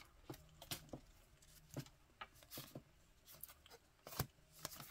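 Faint clicks and soft rustles of baseball trading cards being handled and slid over one another, a scattered tick every so often with a slightly louder one about four seconds in.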